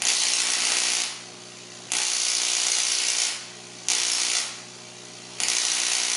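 Solid-state Tesla coil arcs buzzing to a handheld metal rod, switched on and off in four bursts. Each burst starts abruptly and dies away into a pause of under a second, with a faint steady hum underneath.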